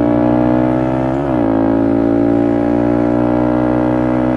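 Motorcycle engine running at steady revs while riding, its note dipping briefly and picking up again about a second in.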